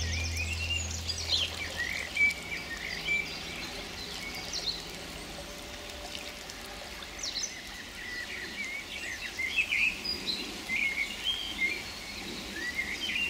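Songbirds chirping and calling over a steady hiss of rain and flowing river water. Soft background music fades out over the first few seconds.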